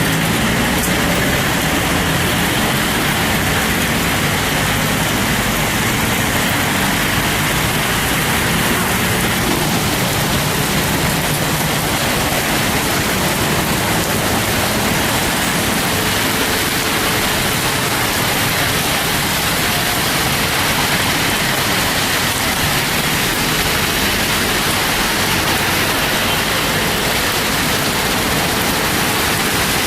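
Heavy rain pouring down steadily in a hailstorm, a dense, even hiss of falling water.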